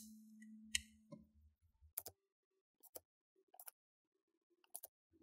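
A few faint, sharp clicks about a second apart as small screws are set and driven into the laptop battery's mounting points, with a faint low hum in the first second or so.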